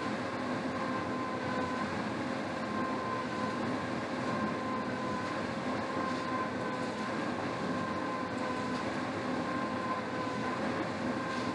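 Air-resistance rowing machine's fan flywheel whirring steadily under continuous rowing: a rushing noise with a steady whine over it.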